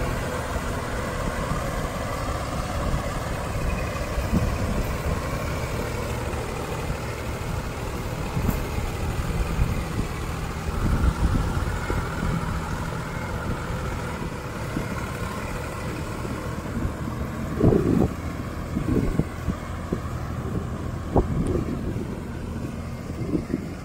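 Diesel tractor engines of a Sonalika DI-740 and a Mahindra 255 running steadily under load, hauling a loaded trolley out of deep mud. A few louder knocks come in the last third.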